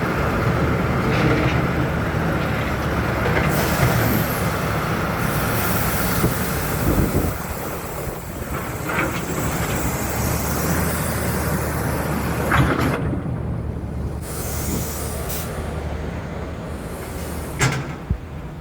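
Dump truck's diesel engine running steadily as the truck pulls away, with a couple of hissing spells and a few sharp knocks.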